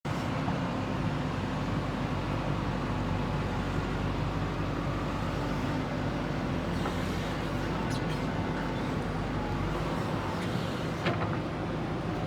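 JCB 3DX backhoe loader's diesel engine running steadily, with a couple of short knocks in the second half.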